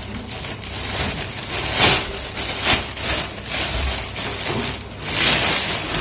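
Plastic packaging bag crinkling and rustling in irregular bursts as hands unwrap a fan blade from it, loudest about two seconds in and again near the end.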